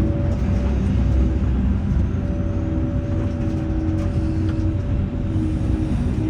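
Heavy diesel machinery at a mobile jaw crusher running steadily: a deep engine rumble with a steady whine over it and a few faint knocks.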